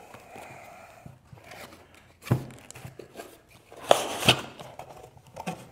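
Cardboard product box handled and opened on a tabletop: light scraping and rustling of cardboard, with a few sharp knocks as the box is set down and its lid and contents are worked, the loudest two about four seconds in.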